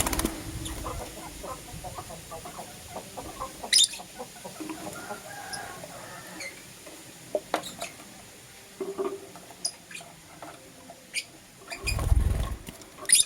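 Young lutino lovebirds chirping in short, scattered calls, with a few sharper high chirps and clicks. A low rumble comes near the end.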